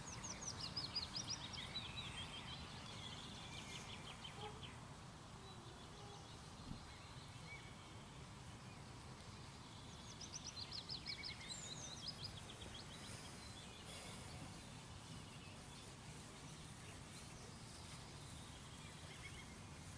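A small songbird singing two songs about ten seconds apart, each a quick run of high notes that fall in pitch over a few seconds, over a faint low steady rumble.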